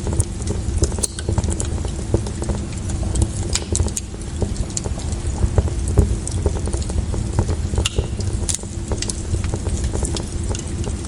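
Wood fire crackling in a fireplace: scattered sharp pops and snaps over a low steady rumble.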